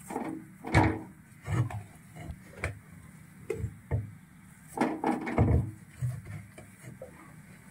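Handfuls of thick, wet rice dough scooped out of a steel pot and dropped into a metal kadai: a series of soft, irregular thuds with a little scraping, about eight in all.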